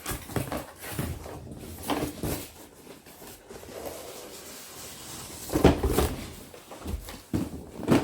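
Packaging being handled while an RC truck is unboxed: irregular rustling with scattered knocks and bumps, the loudest about five and a half seconds in.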